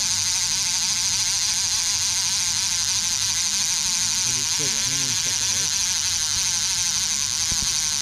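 A loud, steady high-pitched buzzing chorus of night insects, with a brief low mumble of a voice about five seconds in and a single click near the end.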